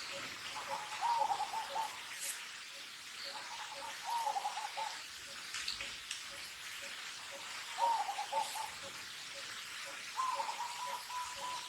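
A series of animal calls: three short warbling runs of quick wavering notes, then one long level call near the end. A soft pip repeats about twice a second underneath.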